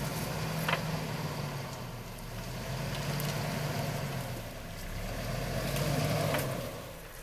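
Off-road 4x4's engine running at low speed, its throttle swelling and easing off about three times as it crawls over rough ground, with a few faint clicks.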